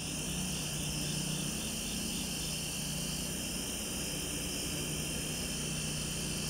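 Late-summer insect chorus: steady shrill trilling at several pitches, with one caller pulsing about three times a second for the first couple of seconds, over a steady low hum.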